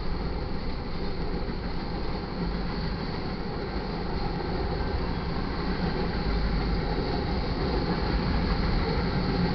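Freight cars of a long manifest train rolling past at speed: a steady rumble and clatter of steel wheels on rail, growing a little louder over the second half.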